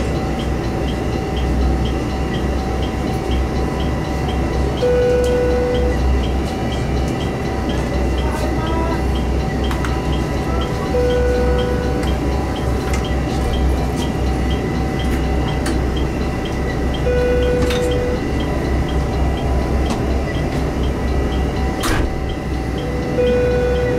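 Train heard from behind the driver's cab, running with a continuous heavy low rumble and steady whining tones. A short electronic beep repeats about every six seconds.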